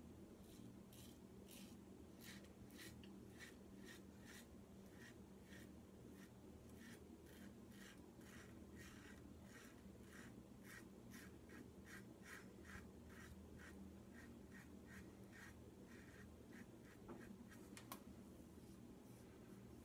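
Edwin Jagger DE89 double-edge safety razor cutting stubble through lather in short strokes: a faint, quiet scrape about two to three times a second on the third pass, the mild head giving little audible feedback. A small click near the end.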